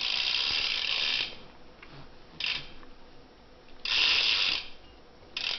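Primo Mix cassette hub on a BMX rear wheel, clicking in a fast ratcheting buzz as the wheel freewheels. It comes in four bursts: a long one at the start, a short one, a longer one about four seconds in, and a brief one at the end.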